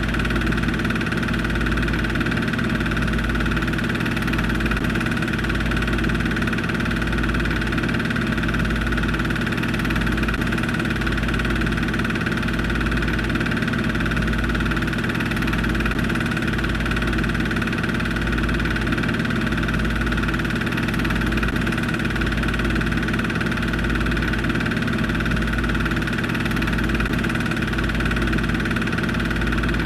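Steady mechanical hum and whir from a running motor, with a slow, even throb low down about once a second.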